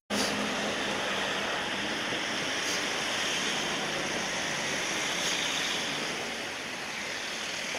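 Steady outdoor street ambience: an even rush of noise with no distinct events.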